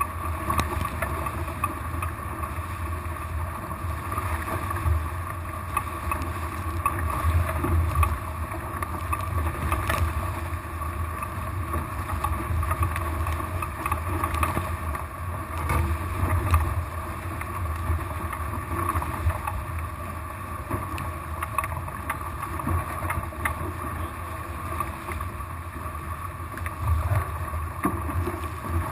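Water rushing and splashing along the hull of a small sailboat under way, with wind on the microphone: a steady rushing noise with a low rumble and occasional small ticks.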